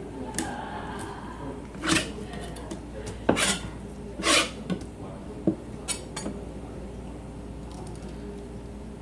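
A filleting knife clicking and scraping against a cutting board and the fish's bones as a rockfish is cut, in a handful of short, irregular strokes.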